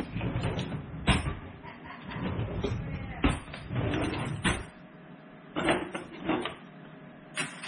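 A kitchen utensil drawer being pulled open with a rumbling slide and several sharp knocks, then a few light clicks and clinks as utensils are picked through in it.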